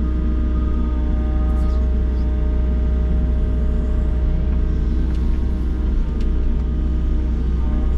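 Volvo excavator's diesel engine running steadily from inside the cab while the bucket digs and lifts soil: a constant low drone with steady tones above it and a few faint clicks.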